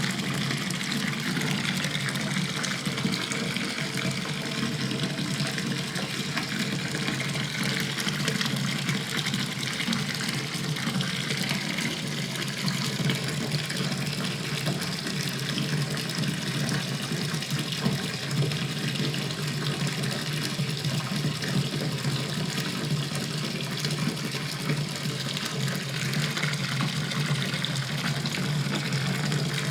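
Bathtub filling from a running tap: water pouring steadily into the tub.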